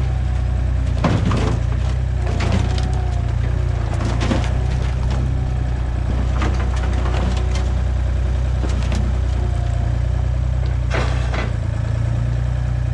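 A heavy engine running steadily, with repeated sharp cracks and crunches and brief creaking tones over it.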